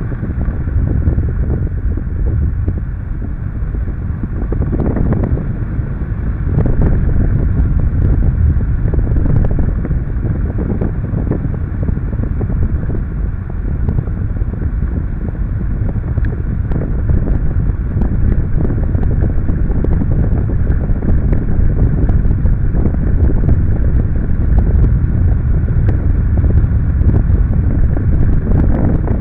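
Airflow buffeting the microphone of a camera mounted on a hang glider in flight: a steady, low wind rumble that grows louder about six seconds in.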